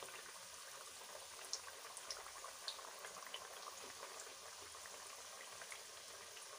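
Sattu-stuffed litti dough balls deep-frying in hot refined oil in a kadhai: a faint, steady bubbling hiss with a few small scattered pops.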